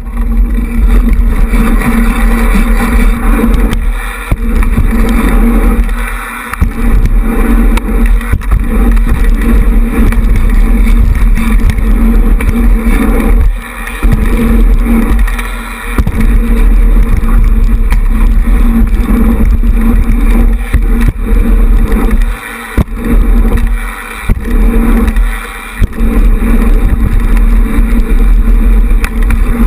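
Loud, steady rush of wind buffeting the microphone of a camera riding on a moving BMX bike, with rumble from the tyres on the track. The rush drops away briefly several times.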